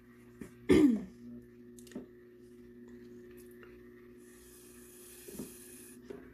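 A person clears their throat with a short cough about a second in. Around four seconds in comes a steady airy hiss, lasting about two seconds, of breath blown through a plastic drinking straw to push alcohol ink across the tumbler.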